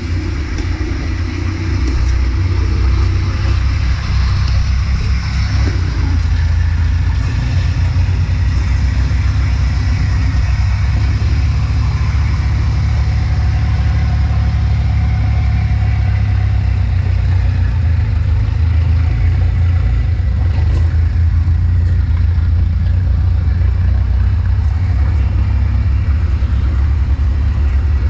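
Engine of a tracked rice-hauling machine running steadily as it drives by loaded with sacks of rice: a constant low drone.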